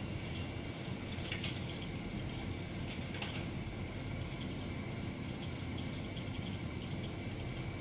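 Steady room noise: a low hum and hiss, with a couple of faint clicks.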